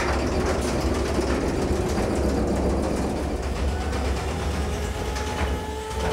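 Trumpf nibblers running continuously as they punch through the steel wall of a heating oil tank to cut it in half, a dense rapid mechanical chatter. The nibbler cuts without sparks.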